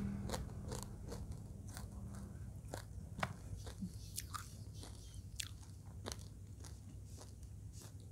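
Chewing and crunching mouthfuls of belut balado (fried eel in chili sauce), heard as an irregular string of small crunches and clicks.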